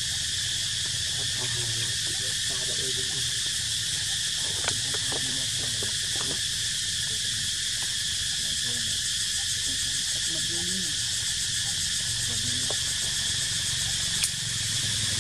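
Steady high-pitched insect drone in the trees, with a low steady rumble underneath and faint short low calls or voices now and then; a brief click near the end.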